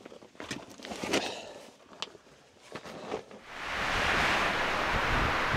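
A few light knocks and clicks, then about three and a half seconds in a steady rush of wind begins and holds.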